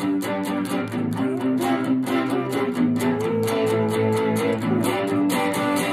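Electric guitar playing a melodic lead line over a steady beat and low bass notes. About halfway through it holds one long note, which wavers and falls away about a second later.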